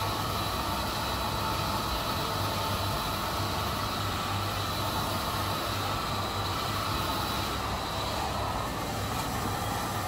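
Handheld hair dryer blowing steadily, a constant rush of air with a low hum underneath.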